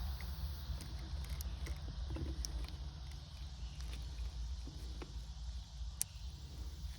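Faint, scattered clicks and taps of small plastic interior parts being handled, with one sharper click about six seconds in, over a steady low rumble.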